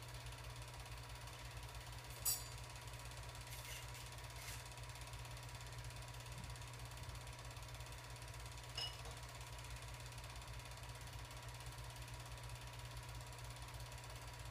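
8mm film projector running, a faint steady mechanical clatter over a low hum, with two sharp clicks, one about two seconds in and one near nine seconds.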